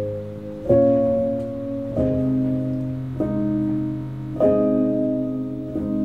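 Slow, calm solo piano music: sustained chords struck one after another, about one every second and a quarter.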